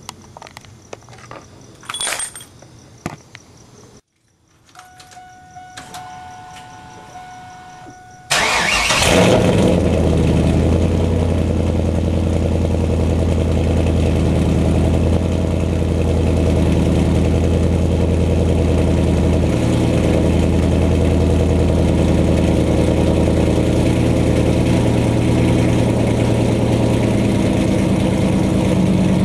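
A 2001 Camaro SS's LS1 V8 cranks and fires up about eight seconds in, then idles loud and steady through an SLP Loudmouth center-mount exhaust fed by long-tube headers. Before the start there are a few faint clicks, one louder knock and a faint steady whine.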